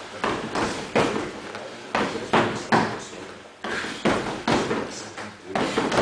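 Gloved punches landing on a free-standing Wavemaster heavy bag: about a dozen dull thuds at an uneven pace, often two or three in quick succession.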